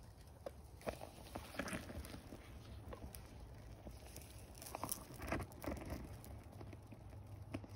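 Molten aluminum poured into lost-foam sand molds, the foam patterns burning off with flames at the sprue cups: irregular crackling and small clicks over a low rumble.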